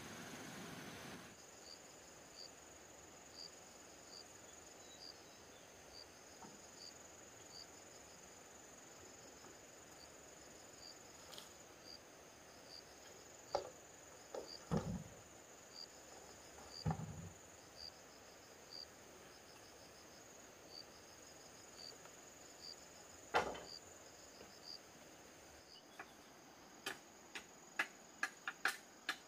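Insects chirping: a short high chirp repeating a little more than once a second over a steady high-pitched buzz. Scattered sharp knocks come in the middle, the loudest a little past two-thirds of the way, and a quick run of clicks comes near the end.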